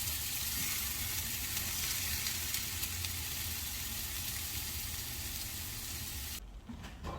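Vienna sausages and chopped vegetables sizzling in a frying pan, a steady hiss that cuts off suddenly near the end.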